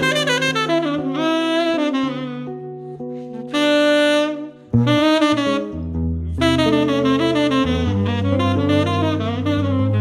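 Jazz duo of tenor saxophone and electric archtop guitar: the saxophone plays the melodic line over the guitar's chords and bass notes, with a brief break in the playing about four and a half seconds in.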